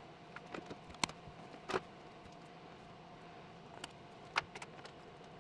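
A handful of sharp clicks and light taps of small hard objects being handled, the loudest about a second in and again near the end, over a faint steady hum.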